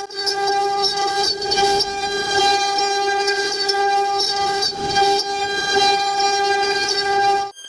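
CNC router spindle running with a steady high whine while its bit cuts into wood, the cutting noise rising and falling over the whine. The sound cuts off abruptly near the end.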